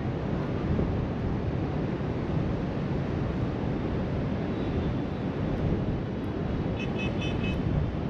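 Wind buffeting the microphone over the steady wash of ocean surf breaking on the shore. A quick run of four high chirps comes near the end.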